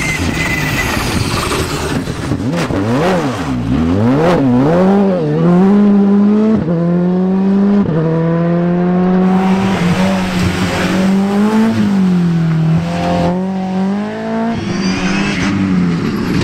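Rally cars at full throttle on a special stage. A Škoda Fabia R5 revs hard and passes, its engine note swinging up and down, then climbs through the gears as it pulls away, the pitch dropping sharply at each upshift. Near the end a Mitsubishi Lancer Evolution rally car comes through.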